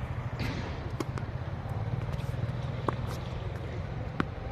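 A few sharp tennis ball strikes off racket strings, the loudest two about a second and a half apart near the end, over a steady low rumble.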